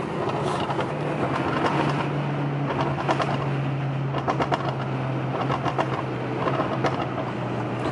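Cabin sound of a tuned Alfa Romeo Giulia's 2.0-litre turbocharged four-cylinder under way: a steady engine drone, broken by irregular clusters of sharp exhaust pops and crackles from the tune.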